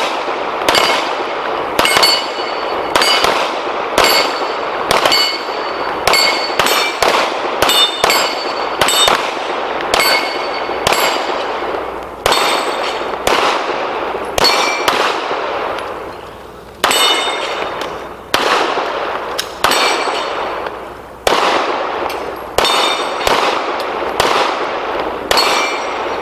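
Pistols firing in quick, irregular succession at steel targets, each shot followed by the ring of a steel plate being hit. The shots come about one or two a second, with a short lull about two-thirds of the way through.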